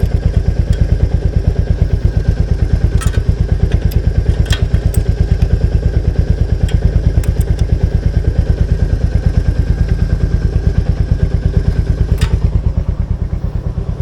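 Royal Enfield Meteor 350's single-cylinder engine idling with an even, steady thump, with a few sharp clicks over it; it gets a little quieter near the end.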